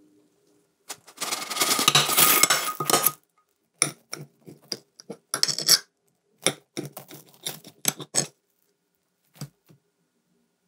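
Knife cutting through a bread frittata on a ceramic plate: a run of short cutting strokes with sharp clicks of the blade against the plate, then two light clicks near the end as a wedge is lifted. Before that, about a second in, comes two seconds of loud scraping and rustling.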